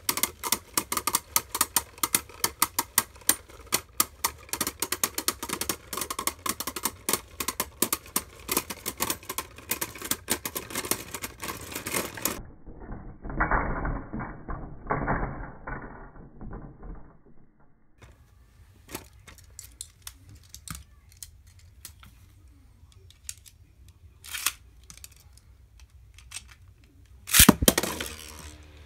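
Arc Bahamut and Maximum Garuda Beyblade Burst tops clashing and grinding against each other in a plastic stadium: a rapid run of clicks and clacks for about twelve seconds, then sparser single clicks as they spin apart, with a louder rattle near the end.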